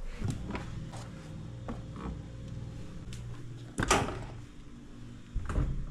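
Light knocks and clicks of objects being handled, with one louder thud about four seconds in, over a steady low rumble.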